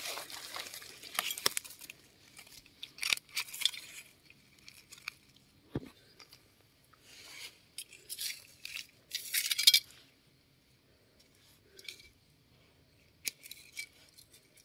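Scattered rustling, scraping and small clicks of a knife and fingers working through dry leaf litter and gravelly soil to dig up a mushroom, with the loudest burst of scraping about nine seconds in.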